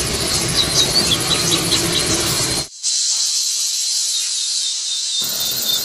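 A train running past close by, a dense rumbling rush of noise with a few faint high chirps over it, cut off abruptly about two and a half seconds in. A steady high hiss follows, with some lower background noise returning near the end.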